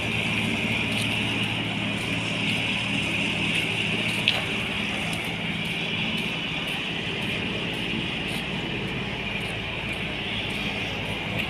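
Steady city street background: a low hum of traffic and machinery under a constant high hiss, with one sharp click about four seconds in.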